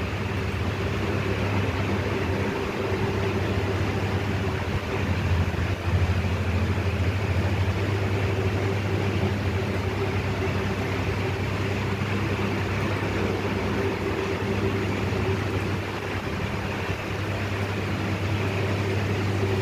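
Steady low machine hum under an even rushing noise.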